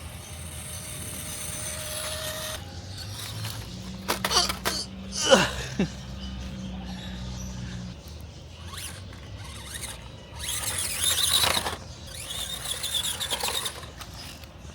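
Toy RC Jeep driving off-road in spurts, its small electric motor whirring and its tyres scrubbing over rough ground. One short squeal falls sharply in pitch about five seconds in.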